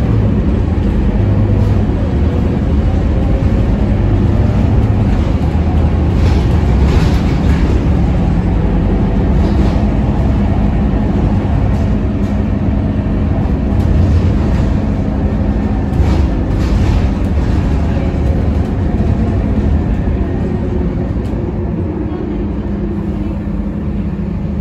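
Inside a Scania K230UB single-deck city bus on the move: the steady drone of its rear-mounted diesel engine under constant road rumble, easing off a little near the end.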